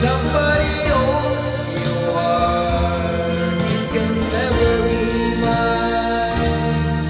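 A man singing karaoke into a handheld microphone over a backing track, holding and bending long notes.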